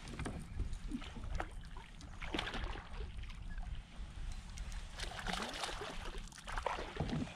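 Water splashing and sloshing beside a kayak as a hooked bass is fought and reeled in, with scattered knocks and a low rumble underneath.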